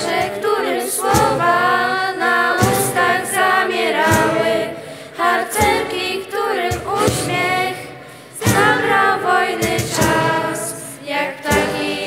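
A group of young voices singing a Polish song together in harmony, with short sharp hits about every second and a half under the singing.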